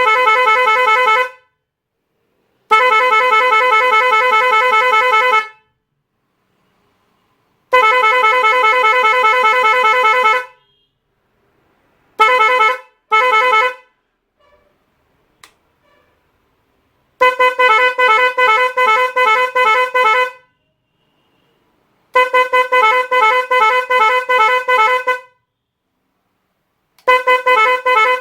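Pair of Roots Windtone 90 electric horns sounding in a series of loud blasts: three steady blasts of two to three seconds, two short honks, then three longer blasts that pulse rapidly on and off in the pattern of a 7-in-1 horn melody maker.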